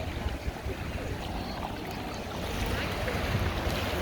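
Wind rumbling on the microphone, with faint voices in the background.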